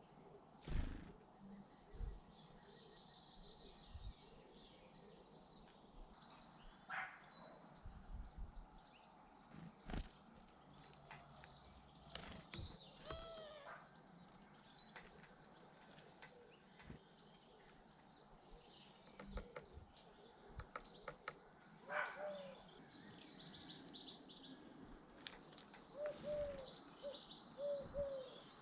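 Small garden birds at a feeder: scattered high chirps and tweets, with sudden wing flaps and knocks every few seconds. Near the end come several low, repeated cooing notes from a pigeon.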